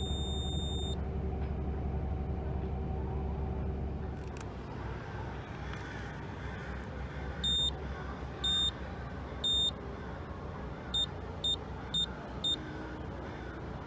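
ACR GlobalFix V4 406 MHz EPIRB self-test beeper sounding high-pitched electronic beeps: one beep fading out about a second in, then three longer beeps about a second apart and four short quick beeps, with the red light flashing to signal a failed self-test. A steady low hum runs underneath.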